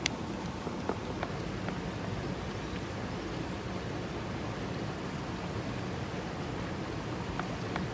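A steady rushing noise with a few sharp crackles from an open wood fire: one right at the start, three in the first two seconds, and one near the end.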